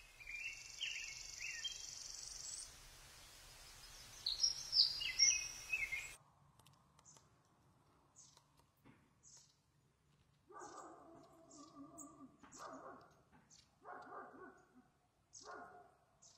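Birds chirping over a steady outdoor background, which cuts off abruptly about six seconds in. Near the end come several short, soft wet squelches as thick melted cheese sauce is dropped onto sliced pork steak.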